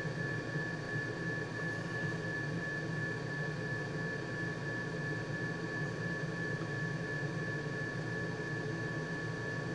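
Steady mechanical hum with a constant thin high whine above it, unchanging throughout, with no separate events.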